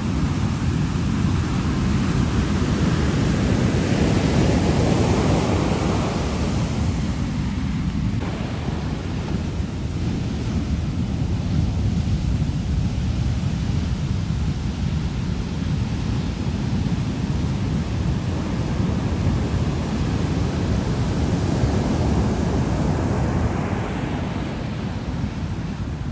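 Heavy surf breaking on a sandy beach: a continuous deep rumble of waves and washing foam, swelling louder a few seconds in and again near the end.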